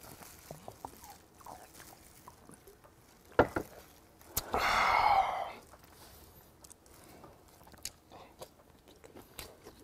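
Close-up eating sounds: a knock of a glass soju bottle set down on the table, light clicks, and about a second of breath-like rushing noise near the middle, which is the loudest sound. Then faint chewing of grilled hagfish toward the end.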